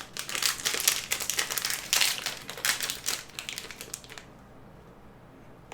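Plastic snack packet crinkling and rustling as it is opened and handled, in dense crackles that die away about four seconds in.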